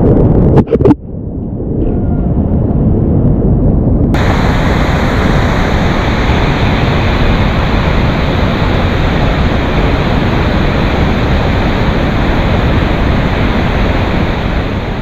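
Steady roar of rushing river whitewater. For the first few seconds it is muffled and heavy with wind buffeting on the microphone, with a couple of sharp knocks about a second in. About four seconds in it abruptly opens into a full, bright, unbroken rush of water.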